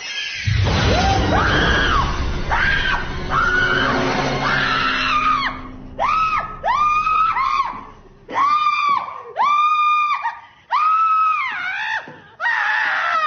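A man and a woman screaming in panic: a loud jumble of shrieks over a low steady drone for the first five seconds or so, then a run of separate high-pitched screams about a second apart.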